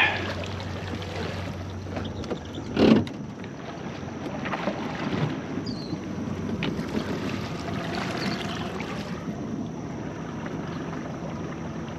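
Jon boat's motor running steadily while the boat moves across open water, with one loud thump about three seconds in.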